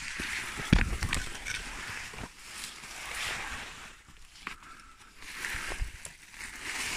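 Footsteps on a leaf-littered path, with branches brushing and rustling past in uneven swells and a low thump about a second in.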